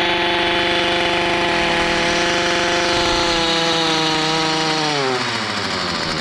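Stihl FS45 string trimmer's small two-stroke engine held at high revs, then let back down: the pitch falls about five seconds in as the throttle is released. It runs steadily and strong on its freshly cleaned carburetor, with no trimmer head fitted.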